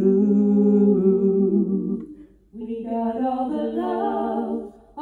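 A woman's voice singing a cappella into a microphone: a long held note that ends about two seconds in, then after a short pause a wordless hummed phrase.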